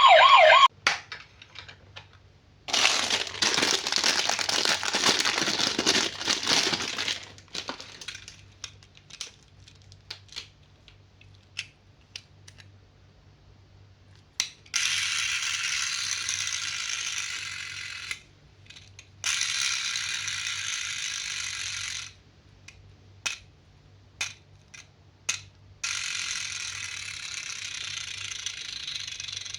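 Toys and their packaging being handled: rattling and clicking, with a noisy rustle a few seconds in. Later come three stretches of steady hiss, each a few seconds long.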